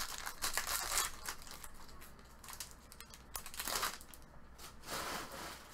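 A 2015-16 Upper Deck Series 2 retail hockey card pack's wrapper crinkling as it is torn open during the first second or so. After that, the stack of cards rustles briefly a few times as it is shuffled by hand.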